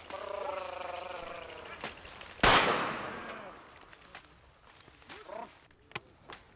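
A single gunshot about two and a half seconds in, sharp and loud, with a long fading echo after it.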